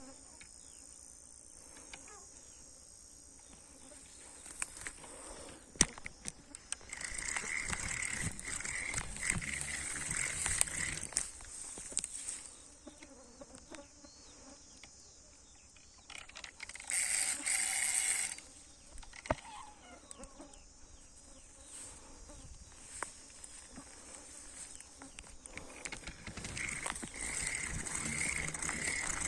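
Outdoor ambience with animal calls that swell for a few seconds twice, a louder rush of noise for about a second and a half near the middle, and scattered sharp clicks.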